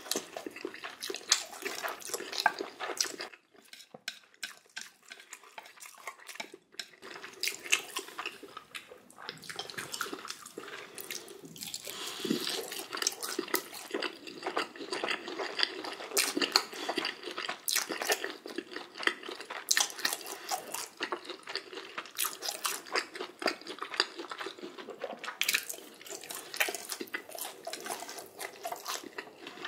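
Close-miked eating sounds: spicy instant ramen noodles being slurped and chewed in quick, irregular wet smacks.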